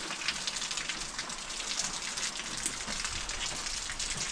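Steady rain falling, a continuous hiss with many small drop hits.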